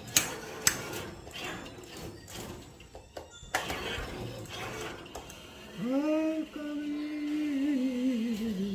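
Claw machine at work: sharp clicks as the claw drops and grips a plastic prize cage. In the last three seconds comes a long wavering tone that slides up and then slowly falls.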